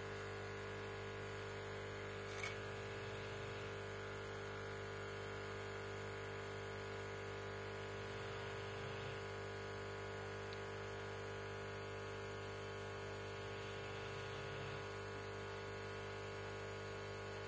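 Steady low background hum, with a single faint click about two and a half seconds in.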